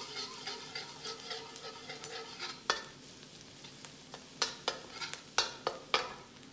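Minced garlic sizzling softly in oil in a stainless steel wok as a stainless steel spatula stirs and scrapes it, sautéing the garlic until fragrant. Sharp clicks of the spatula against the wok come once midway and several times in the second half.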